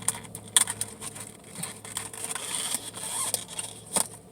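A person chewing a mouthful of Popeyes fried chicken, with irregular crunches and mouth clicks.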